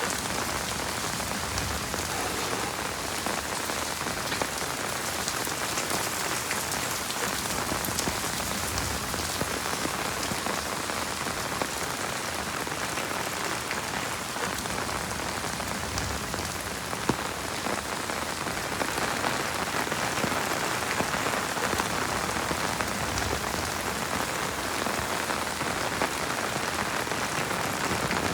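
Heavy rain falling steadily, a dense hiss of drops with many fine close ticks and one sharper tap about seventeen seconds in.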